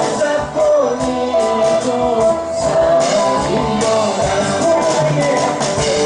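A band performing live: several women singing a song together over electric and acoustic guitar accompaniment, with no break.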